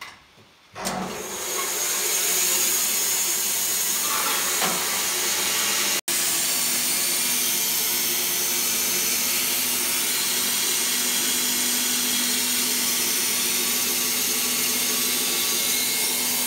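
Wood-Mizer LT15 band sawmill starting up about a second in and running on steadily, its band blade cutting a log with a loud, even hiss over a steady motor hum.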